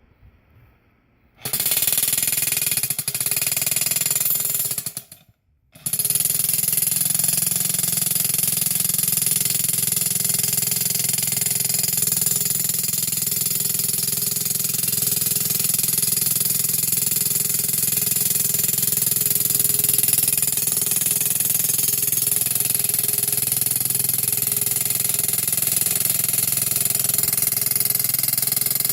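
Electric jackhammer fitted with a welded t-post driver attachment, hammering a steel t-post into the ground. It starts about a second and a half in, stops briefly around five seconds, then runs on without a break.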